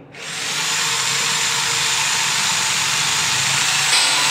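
A machine starts up and reaches full speed within about half a second, then runs steadily with a loud, even hiss over a faint low hum. There is a brief surge near the end.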